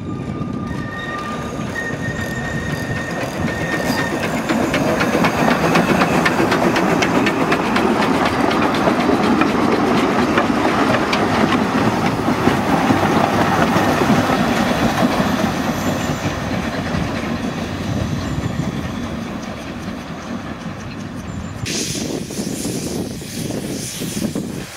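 Narrow-gauge steam train passing close by, its locomotive and coaches clattering along the track with a rapid run of clicks. The sound builds as it approaches, is loudest around the middle, and fades away as it goes by.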